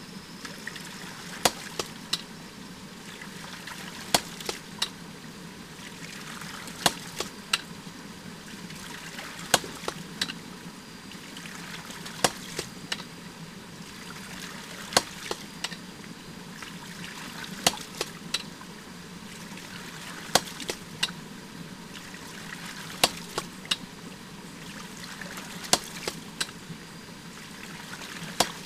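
Hydraulic ram pump cycling: its waste valve slams shut with a sharp clack about every 2.7 seconds, each clack followed by one or two lighter clicks, over the steady splash of water spilling from the valve. Each clack is the water-hammer stroke that drives a slug of water into the air chamber and up the delivery pipe.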